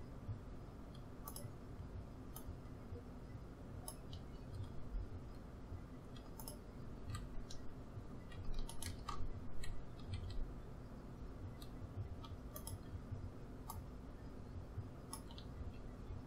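Computer keyboard keys and mouse buttons clicking now and then, about a dozen irregular single clicks, over a steady low background hum.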